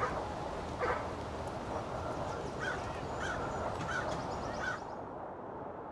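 Domestic fowl honking about six times in short calls over a steady low background rumble; the higher sounds cut off abruptly near the end.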